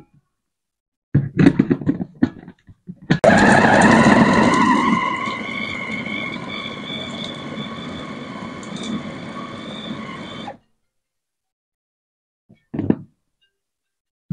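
Bosch-branded 1000 W electric food chopper motor and blades chopping chunks of fatty meat in a stainless steel bowl: it starts suddenly, loud, with a whine that rises in pitch as the motor spins up, settles quieter as the meat is cut down to mince, and cuts off abruptly after about seven seconds. A few knocks come before it as the lid and motor head are fitted, and one short knock near the end.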